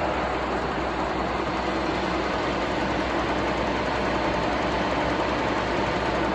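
Stanko 6A82III milling machine's feed drive running steadily, moving the knee vertically at feed rate, with a low hum and a faint steady whine.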